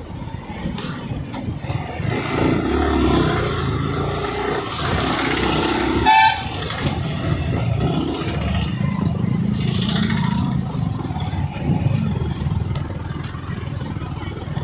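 Yamaha R15M's single-cylinder engine running with road noise while riding through town traffic, with a short vehicle horn toot about six seconds in.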